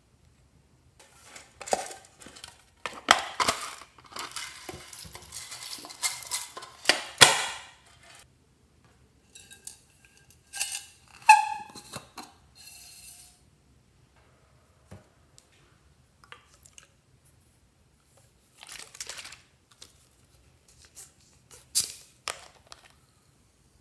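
Sequins and glitter being shaken out of a soda can and a plastic soda bottle onto slime in glass dishes. It comes as several bursts of rattling and clinking, the longest in the first eight seconds.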